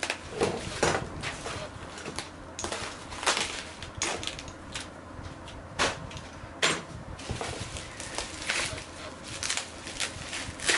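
Bubble wrap and cardboard packaging crinkling and rustling in irregular crackles as a wrapped box is handled.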